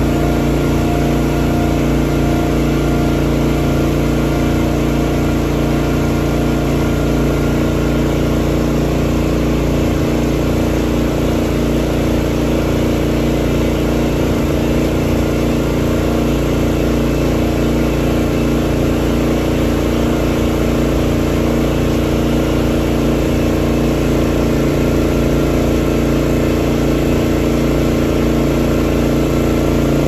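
Calf milk-feeding cart's motor running steadily as the cart moves along the trough, a constant hum with a faint regular pulse.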